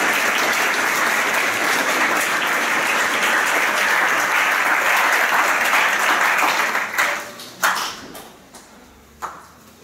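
A large audience applauding: dense, steady clapping that dies away about seven seconds in, leaving a few last scattered claps.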